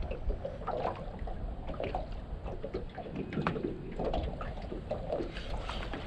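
Small wind-driven waves lapping and slapping irregularly against the hull of a small boat, over a steady low rumble of wind.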